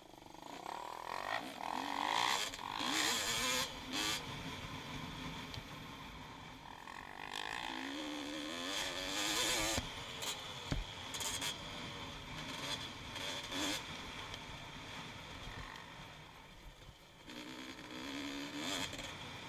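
Honda CR250 dirt bike's two-stroke single-cylinder engine revving hard while riding, its pitch climbing and dropping repeatedly as the throttle opens and the gears change, with wind rushing over the helmet-mounted microphone.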